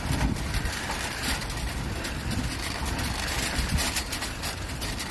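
A train of metal shopping carts being pushed, its wheels rolling with a steady low rumble and a continuous rapid rattling clatter.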